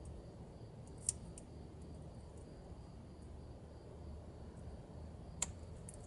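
Small sharp clicks from a plastic wiring connector and its metal pin terminals being worked by hand as the wires are depinned: a loud click about a second in, another near the end, and a few faint ticks between, over a low steady hum.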